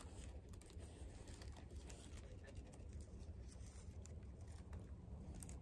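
Near silence: faint room tone, with a few faint ticks near the end.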